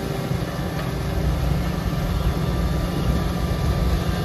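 Truck engine running steadily, a low even rumble with a steady hum.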